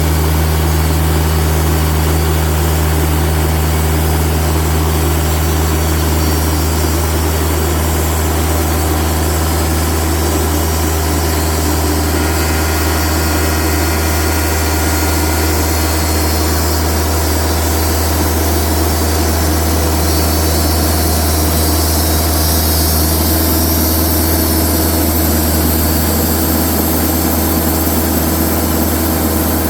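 Engine of a TimberKing bandsaw sawmill running steadily at a constant pitch, with a thin high hiss joining in about three-quarters of the way through.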